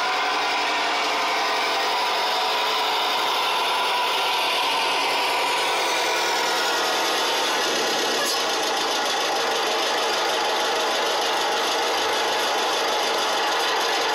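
Sampled engine sound of an IFA W50 truck's four-cylinder diesel, played by a Beier sound module through the RC model's small built-in speakers, running steadily. A high whine falls in pitch about halfway through as the model slows to a stop.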